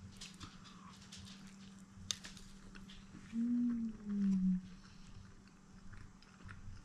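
Two closed-mouth 'mmm' hums of approval from a man chewing a first bite of breakfast burrito, about three seconds in, the second a little lower in pitch. Faint clicks and crackles of chewing and the paper wrapper are heard around them.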